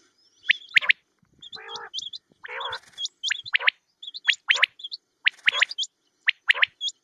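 Quail (batair) calls from a hunters' lure tape of a female quail's call: many quick, sharp chirps with hooked pitch sweeps, broken by two rough, buzzy calls about a second and a half and two and a half seconds in.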